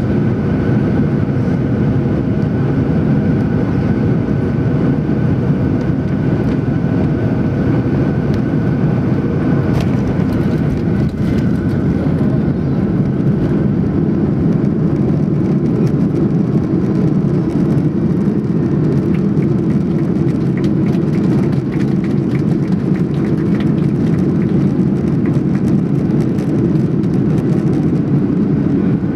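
Cabin sound of a Boeing 737-800 airliner landing: steady engine noise with a thin whine, then touchdown on a snowy runway about ten seconds in. The whine fades and a heavier low rumble takes over as the jet rolls out.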